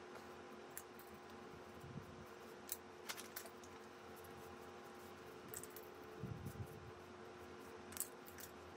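Faint handling noises as small wooden hangers with wire hooks are unwrapped from tissue paper: a few light clicks and taps and two soft thumps over a steady low hum.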